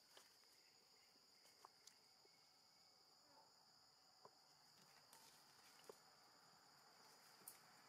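Near silence with a faint, steady, high-pitched insect drone, and a few faint clicks.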